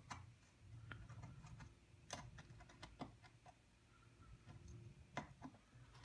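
Near silence over a faint low hum, with a few scattered faint clicks and taps as a soldering iron and thin steel cable wire are handled against a small brass nipple on the bench.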